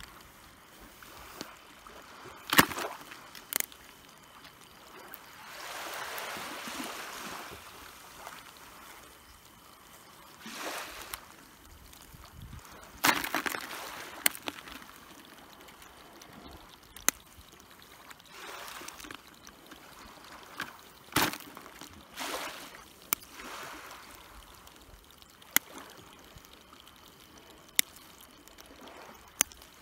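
Blue crabs being worked out of a mesh landing net and dropped into a plastic bucket of water: scattered sharp clicks and knocks, with short splashes and sloshing of water.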